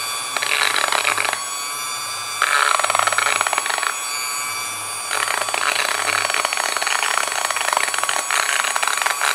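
Dremel rotary tool with a tile-cutting bit spinning at about 10,000 RPM, grinding the inside of a chainsaw cylinder's intake port to rough it up for epoxy. It whines steadily, with three louder spells of rasping as the bit bites into the metal, the last one the longest.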